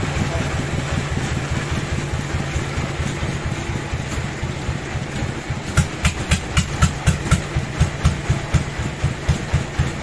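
Sawmill bandsaw machinery running with a steady drone. From about six seconds in, a regular metallic clacking of about four knocks a second joins it.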